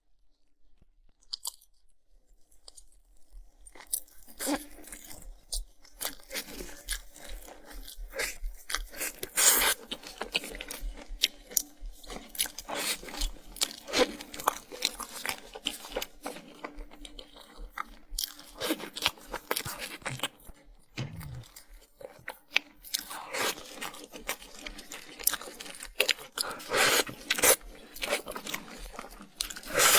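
Close-miked eating: a person biting into and chewing crisp food with dense, irregular crunches. It starts a few seconds in, with louder bursts of crunching about a third of the way through and again near the end.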